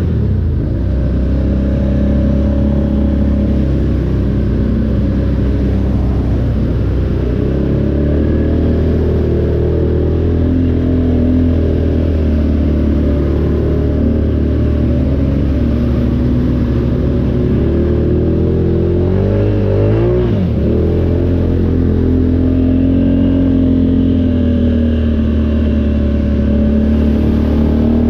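ATV engine running steadily under way, its pitch drifting up and down with the throttle, and a quick drop and rise in revs about twenty seconds in.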